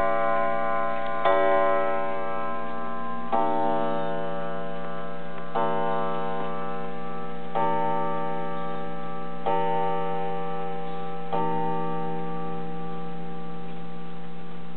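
1911 Junghans wall clock striking the hour on its gong. Six slow strokes come about two seconds apart, each ringing on into the next, and they finish a count of seven o'clock. The movement ticks underneath.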